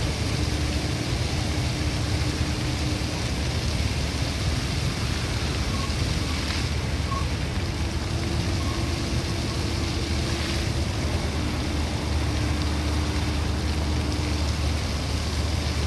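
Illuminated fountain's water jets spraying and falling back into the pool: a steady rushing hiss over a low rumble, with no breaks.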